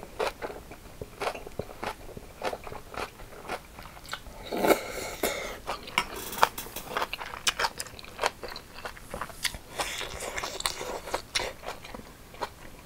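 Close-up eating sounds: crisp crunching and wet chewing of cucumber bibimbap, in many irregular crunches. About midway a wooden spoon scrapes and clinks in the stainless steel bowl as more is scooped.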